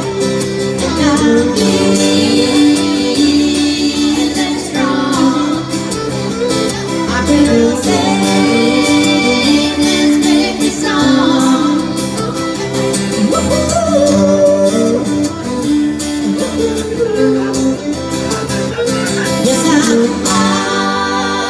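Live acoustic band playing an instrumental break: bowed fiddle lines over strummed acoustic guitars.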